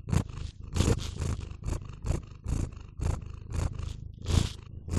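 A domestic cat chewing and smacking at a rice pancake held up to its mouth: quick, wet chewing strokes close to the microphone, about two to three a second.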